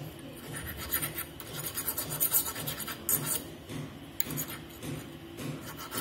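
Flat hand file rasping across a refrigerator capillary tube in short, irregular strokes, roughening its surface so the brazed joint takes well.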